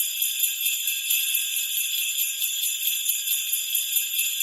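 Jingle bells shaken continuously: a dense, bright, high-pitched jingling with small pulses several times a second.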